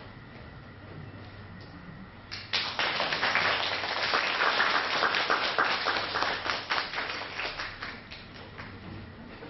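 Audience applauding: dense clapping breaks out about two and a half seconds in, swells, then dies away near the end.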